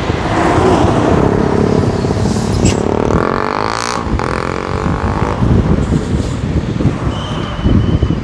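Road traffic noise, with a steady rumble and wind buffeting the microphone of a moving vehicle. Another vehicle passes about three to four seconds in, and a few short high beeps come near the end.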